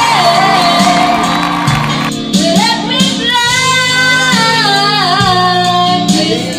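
A song with a woman singing long, gliding held notes over a steady bass line.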